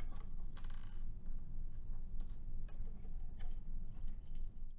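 Small screwdriver working the screws out of a metal shield on a circuit board, then the shield handled and lifted off: a scatter of light clicks and ticks.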